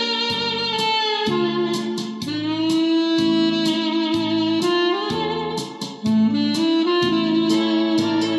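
Saxophone instrumental with long held melody notes over a steady beat of backing accompaniment, played back through a homemade 12AU7 tube hybrid amplifier.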